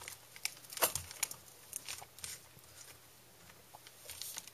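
Scattered light clicks and rustling of a plastic solution bottle being handled and its cap taken off, over newspaper spread on the table.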